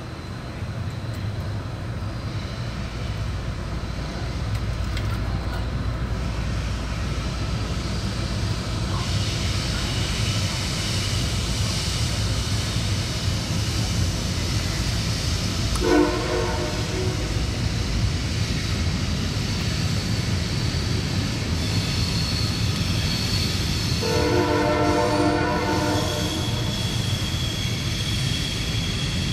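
A train passing with a steady low rumble and a high squeal above it. Its horn sounds briefly about halfway through and again for a second or two near the end.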